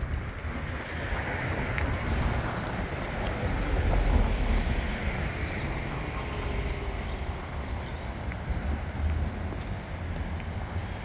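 Street traffic going by, with one vehicle passing and swelling to a peak about four seconds in, over a low rumble of wind on the microphone.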